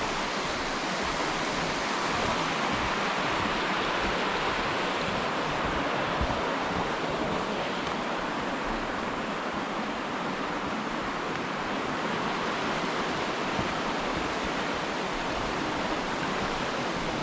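Mountain stream rushing over rocks and small cascades: a steady, unbroken hiss of whitewater.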